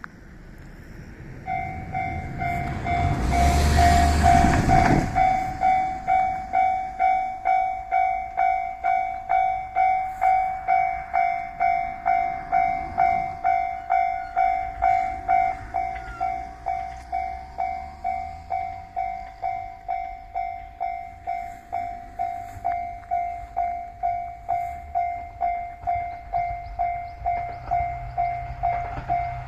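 Japanese level-crossing warning bell ringing: an electronic ding repeating steadily about twice a second, starting about a second and a half in. About three seconds in, a loud rushing noise with a low rumble lasts about two seconds.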